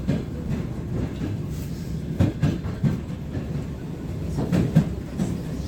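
Wheels of an ER9M electric multiple unit clattering over rail joints: a steady low rumble broken by sharp knocks, several of them in quick pairs.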